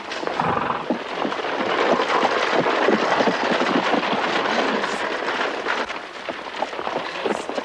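A horse-drawn carriage rattling over a cobbled street: a dense clatter of wheels and hooves that eases near the end.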